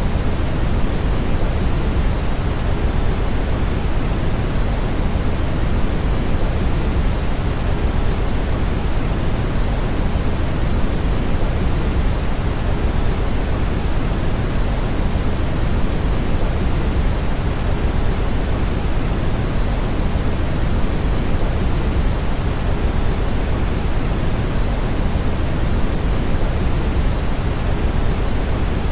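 Steady brown noise: an even, unchanging rush, deepest and strongest in the low end.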